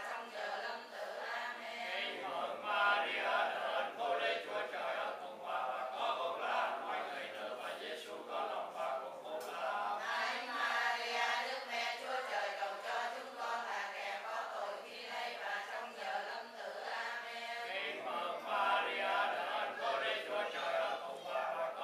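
A group of voices chanting prayers together in Vietnamese, in a steady unbroken recitation of the kind used in Vietnamese Catholic funeral prayers.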